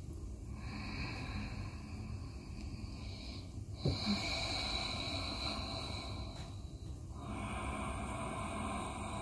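A person breathing slowly and steadily during yoga practice, each breath lasting about three seconds. There is a brief louder sound about four seconds in.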